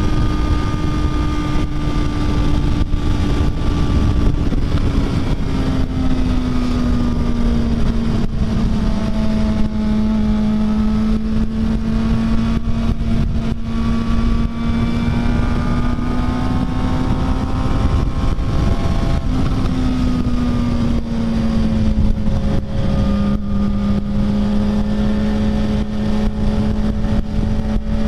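Sport motorcycle engine cruising at highway speed, one steady engine tone that eases down slightly in pitch twice as the rider backs off a little. Heavy wind rush and buffeting on the helmet-mounted microphone.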